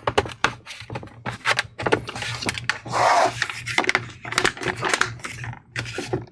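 Plastic bottom cover of an Acer Predator Helios 16 gaming laptop being pressed down onto the chassis by hand: a rapid, irregular series of clicks and knocks as it seats, with a scraping rub about three seconds in.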